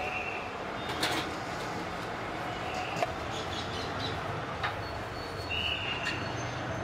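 Busy food-stall background noise: a steady low hum with a few sharp clinks about one and three seconds in, and several short, high ringing tones.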